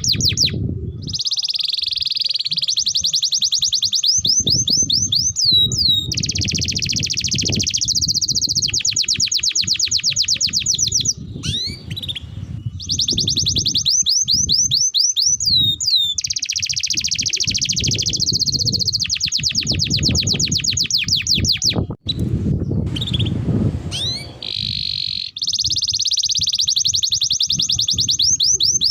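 Domestic canary singing long, rapid trills of repeated high notes, each lasting several seconds, broken by short pauses and quick downward-sweeping notes, with low background noise underneath.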